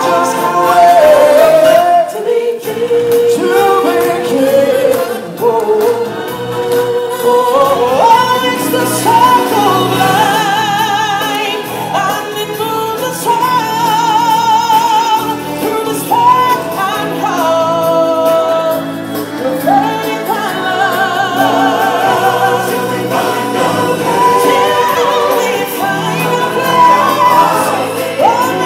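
Live stage-show music: sung vocals with a wavering vibrato over musical accompaniment, playing loud and without a break.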